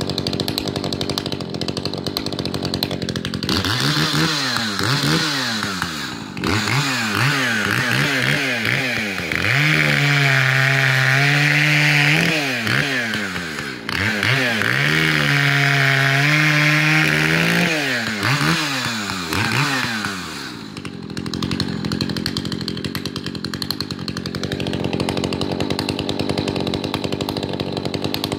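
Echo CS-590 two-stroke chainsaw, fitted with a new carburettor and a gutted muffler, running. It idles, is revved up and down in quick blips, held at full revs for a few seconds twice, then blipped again and settles back to a steady idle.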